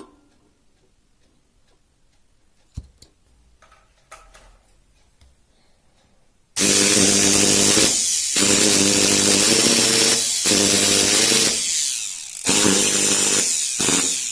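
A few faint clicks, then about six and a half seconds in a brushed electric motor with carbon brushes switches on and runs loudly and steadily, cutting out briefly three times before stopping near the end.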